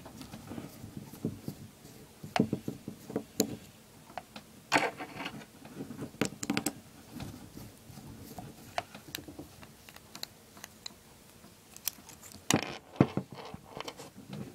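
Irregular clicks and light scrapes of a screwdriver and small metal parts as screws are taken out of a weed whacker carburetor, with a denser run of clicks near the end.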